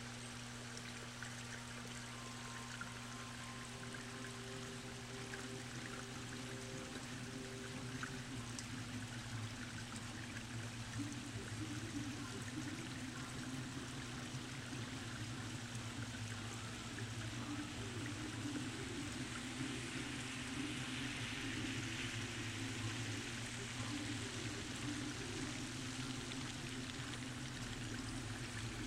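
Steady rain falling, an even hiss of rain with a low steady hum underneath.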